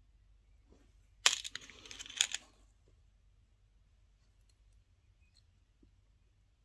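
Hands handling small nail-art pieces and their packaging close to the microphone: a burst of crackling and clicking about a second in that lasts about a second, with two sharp clicks, then a few faint ticks.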